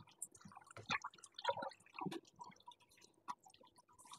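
Faint kitchen sounds: water dripping and splashing at a sink as a bowl is rinsed, with scattered small clicks of a metal spatula against the frying pan and plate.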